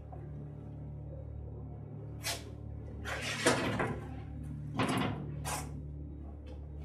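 Handling noises like a door or cupboard being opened and shut: four short scraping knocks, the longest and loudest about halfway, over a steady low hum.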